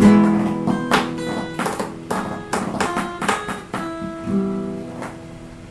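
Acoustic guitar strummed and picked, its notes ringing out and dying away as the music fades toward the end.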